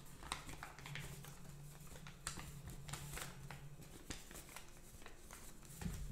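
A creased sheet of paper rustling and crackling as it is folded by hand, collapsing along its pre-creased mountain and valley lines, with a string of short sharp crinkles.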